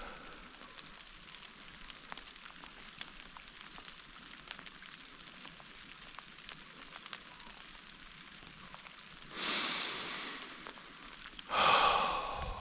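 Light rain falling on forest leaves: a faint steady hiss with scattered drop ticks. About nine seconds in, and again more loudly near the end, a long breathy exhale close to the microphone.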